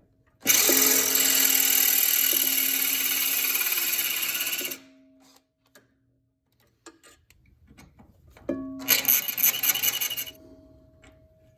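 Cordless right-angle drill boring into a snapped stainless steel bolt in two runs, one of about four seconds and a shorter one near the end. The bit is struggling in the hard stainless.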